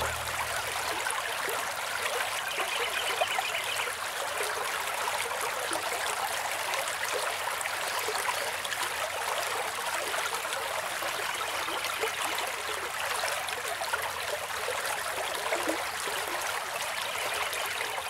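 Steady trickling of running water from a small stream.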